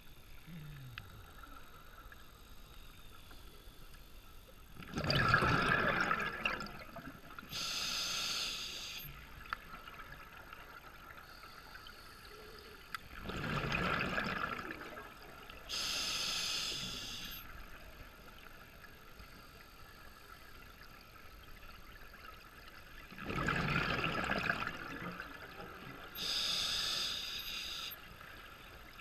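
Scuba diver's breathing through an open-circuit regulator underwater: three slow breaths. Each has a loud rush and bubbling of exhaled air, followed about a second later by the shorter, higher hiss of the demand valve.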